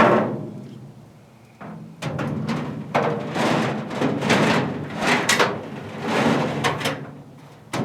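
A metal cabinet shelf clanking and scraping against the cabinet's sides and corner hooks as it is lowered and pushed down into place. There is a string of uneven knocks with a little metallic ringing.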